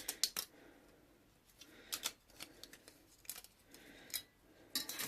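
Light clicks and scrapes of a pokey (pick) tool pushing small cut-out pieces free of a thin metal cutting die, in short scattered strokes.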